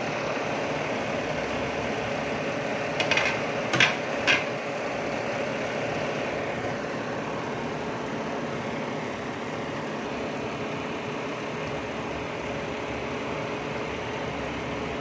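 Pot of dinuguan (pork blood stew) at a rolling boil, giving a steady bubbling noise, with a few sharp clinks about three to four seconds in.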